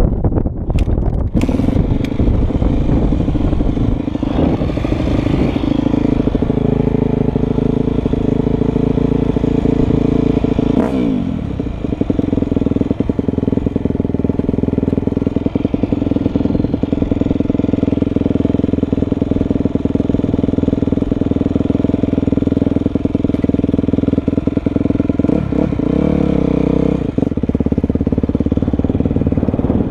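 Motocross bike engine running and revving as the bike rides over rough grassy ground, heard from a camera mounted on the bike, with some clattering. The engine note dips briefly about eleven seconds in and wavers again near the end.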